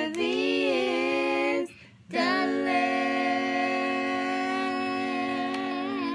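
A woman and two young children singing a hymn together a cappella in harmony: a short sung phrase, a brief breath, then a long held final chord.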